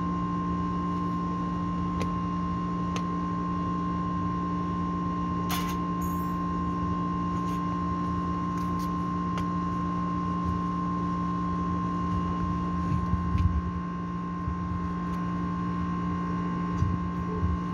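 Steady mechanical hum at a constant pitch over a low rumble, with a few light clicks and knocks of handling; the rumble swells briefly about 13 seconds in.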